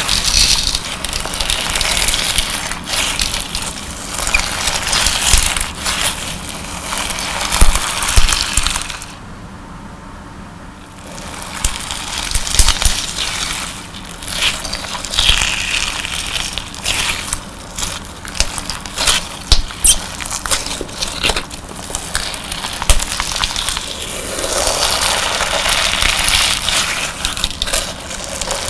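Colour-sand slime being squeezed and pressed by hand, giving a grainy crunching and crackling with many small irregular pops. It goes quieter for a couple of seconds about a third of the way in, then the crackling resumes.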